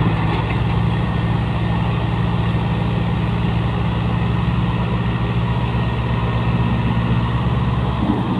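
Al-Ghazi tractor's diesel engine running hard at a steady speed under heavy load, hauling a fully loaded sugarcane trolley: a loud, even drone with a fast, regular firing pulse.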